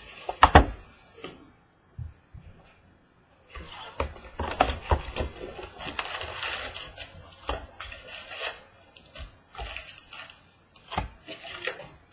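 A sealed trading-card box being opened by hand: a sharp knock about half a second in, then a long stretch of crinkling and rustling packaging from about three and a half seconds on, with scattered clicks near the end.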